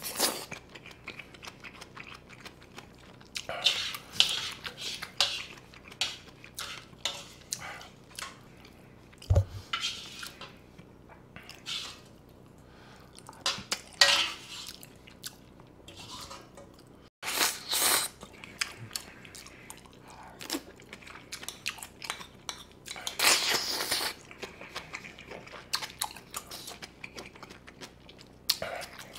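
Close-miked chewing and mouth sounds, broken by a spoon scraping and clinking against a shallow coated grill pan several times, loudest about two thirds of the way in.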